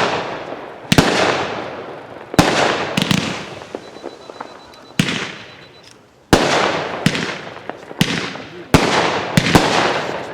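Consumer fireworks cake, the Perfect Harmony with brocade mines and red and green strobe, firing a volley of sharp bangs, roughly one every second at irregular spacing, each trailing off in a fading crackle and hiss.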